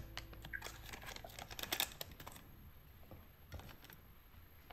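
Light clicks and taps of small containers being handled: a quick run of them in the first couple of seconds, then a few faint knocks.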